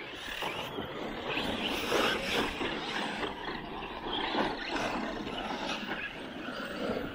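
1/8-scale electric RC trucks driving: motors and drivetrains whining and surging with the throttle, swelling and fading several times, with tyres running over grass.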